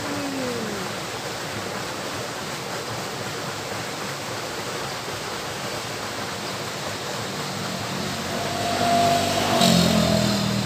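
Steady rush of the small river's flowing water, with a motor vehicle passing on the adjacent road near the end, its engine growing louder as it goes by.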